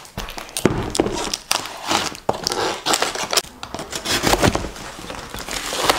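Plastic wrapping and packing tape crinkling and crackling in irregular bursts as a taped cardboard parcel is handled, turned over and slit open with a small Gerber pocket knife.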